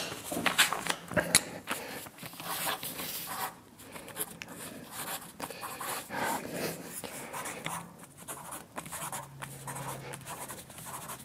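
A pen scratching on a sheet of paper in short irregular strokes as someone writes by hand, with a sharp knock right at the start.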